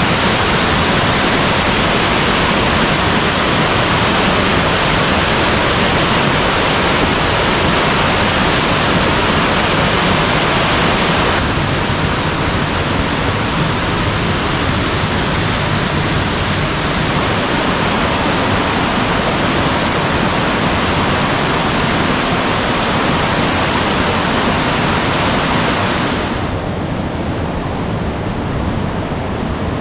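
Mountain stream water rushing over rocks and small falls, a loud steady wash of noise. It shifts abruptly about 11 seconds in and again around 17 seconds, and turns softer and duller near the end.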